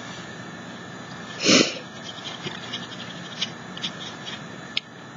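Fingers rubbing and smudging soft pastel over a stencil on a textured plaster canvas, with faint scratches and a few light ticks. About a second and a half in, a short loud rushing noise.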